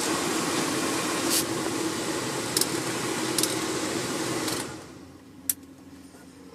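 1997 Chevrolet 1500 W/T's heater blower fan running on a high setting, a steady rush of air with a low hum. It falls away about four and a half seconds in, and a single sharp click follows.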